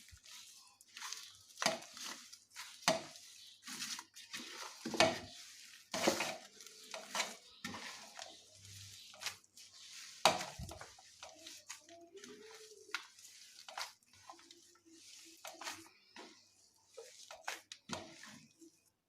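Irregular clinks and knocks of a utensil against a bowl, a few a second, as boiled potato, ground sago and spices are mashed and mixed into a dough.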